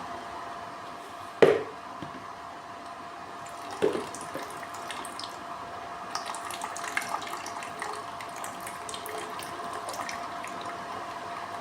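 Water trickling and dripping in the HHO generator's water lines as its faucets are worked, over a steady hum with one thin tone. Two sharp knocks come about 1.5 and 4 seconds in, and the dripping thickens after the second.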